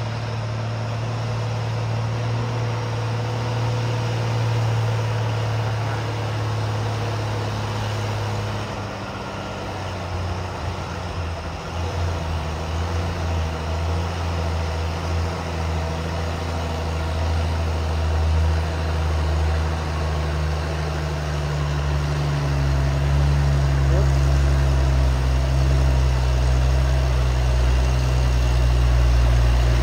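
Heavy diesel truck engine labouring on a steep uphill grade. Its pitch sags about nine seconds in, then rises and grows louder over the last third; the truck is short of power for the climb.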